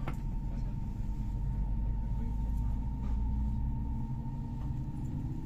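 Low, steady rumble inside the passenger cabin of a Whoosh high-speed train, with a faint steady hum over it and a single click at the start.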